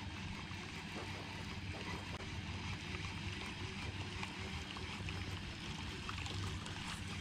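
Steady low rumble and hiss of light wind and water around a small boat drifting on a calm river, with a few faint ticks.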